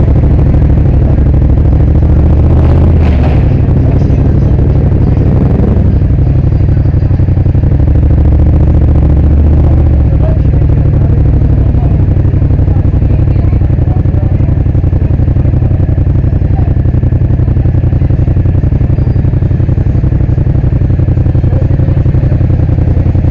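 Motorcycle engine running at low speed in stop-and-go riding, a steady low rumble that swells about three seconds in and again around eight to ten seconds in.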